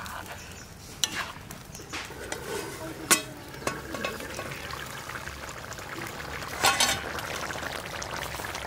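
Chicken curry simmering in a large iron kadai while a metal ladle stirs it, with a steady sizzling hiss underneath. A few sharp metal clinks of ladle on pan, the loudest about three seconds in and again near seven seconds.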